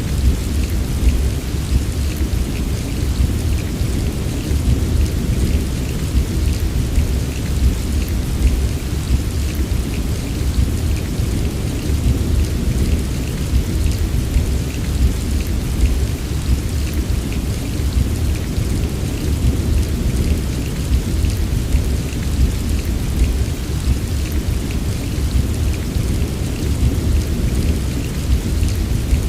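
Heavy rain falling steadily: a dense patter of drops over a constant low rumble.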